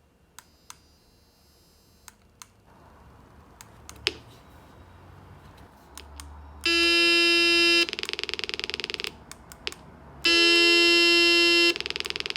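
A few light clicks, then the speaker of a light-to-sound electronics kit circuit sounds a loud, steady, buzzy electronic tone. The tone alternates with quieter stretches where the same pitch pulses rapidly on and off, as the circuit turns changes in light into sound.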